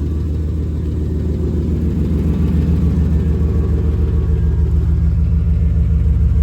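GM 5.7-litre 350 Vortec V8 idling, growing a little louder about two seconds in. The engine has an intermittent noise at idle that the owner cannot yet place as piston slap, lifter tick or rod knock.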